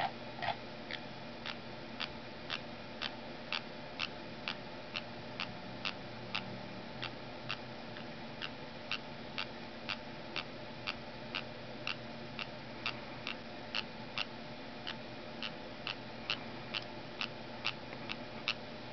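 Parrotlet making sharp mouth clicks that copy a computer mouse's scroll wheel, repeated evenly about twice a second.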